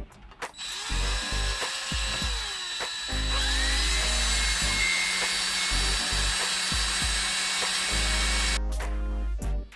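Power drill running in two spells: a short whine in the first few seconds, then a longer steady whine that rises as it spins up about three seconds in and stops near the end. It is drilling at the front of the truck's heater control mount, where a broken plastic screw boss would not hold.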